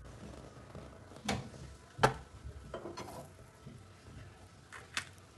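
Several short, sharp metal clicks and clinks, the loudest about two seconds in, from kitchen tongs and a gas stove being handled as a red-hot piece of charcoal is taken off the burner.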